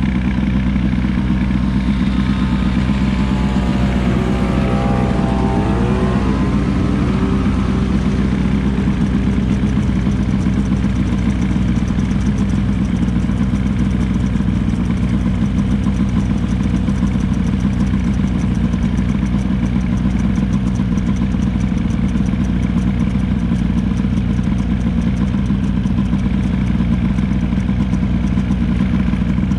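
Snowmobile engine running steadily at cruising speed on a trail ride. A few seconds in, a higher tone briefly wavers up and down over it.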